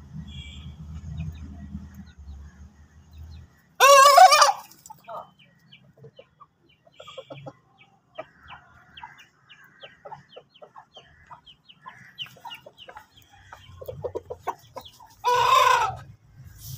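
Aseel roosters calling: two loud, short calls, one about four seconds in and one near the end, with soft clucking and pecking sounds between them.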